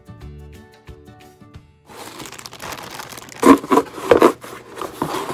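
Background music with a melody that cuts off about two seconds in. Then a cardboard shipping box is pulled open and the plastic packaging inside crinkles, with several loud crackles a little past the middle.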